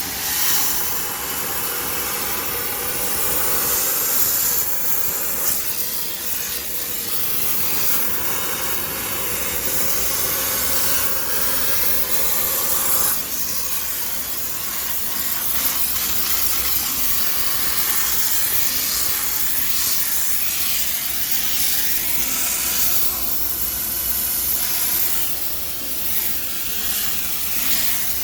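High-pressure steam sterilizer jet hissing steadily while steaming a front-loading washing machine, its hiss shifting in tone about halfway through.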